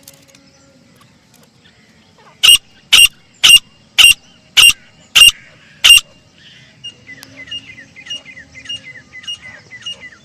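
Grey francolin (desi teetar) calling: seven loud, shrill notes about half a second apart, then a faint run of quicker, softer notes, about two a second.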